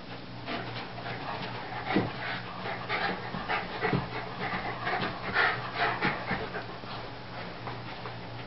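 Two Bedlington terriers tugging over a plush toy, making a quick, irregular run of short dog noises that is loudest in the middle and dies away near the end.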